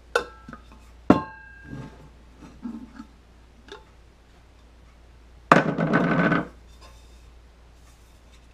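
A stainless steel insulated tumbler being handled: two sharp metallic clinks in the first second or so, the second ringing briefly, a few light knocks, then a louder scraping rub lasting about a second midway.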